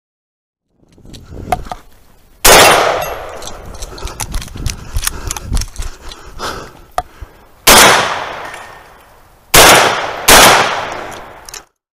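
Shotgun fire during a 3-gun stage: four loud gunshots, each trailing off in an echo, one about two seconds in and three near the end, the last two less than a second apart. Between the shots are weaker clicks and rustling from the shooter moving with the gun, and the sound cuts off suddenly near the end.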